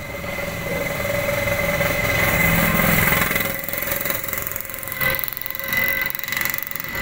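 A vehicle engine running close by, growing louder over the first few seconds and then easing off.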